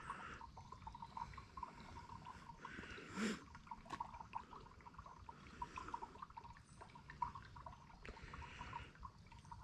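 Small backwoods creek trickling faintly, with a steady patter of tiny drips and splashes. A brief, louder sound stands out about three seconds in.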